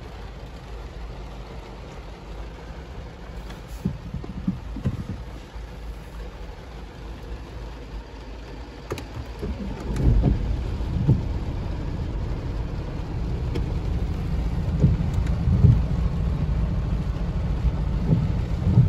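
Heavy rain falling on a car's roof and windscreen, heard from inside the parked car with the engine off. A deeper low rumble comes in and grows louder about ten seconds in, with scattered small ticks of drops on the glass.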